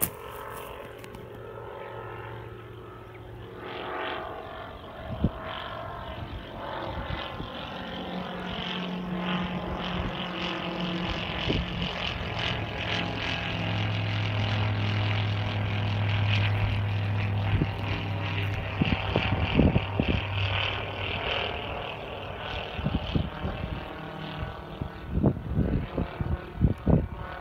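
Propeller aircraft's engine drone passing overhead, growing steadily louder to a peak about halfway through and then fading. Wind buffets the microphone near the end.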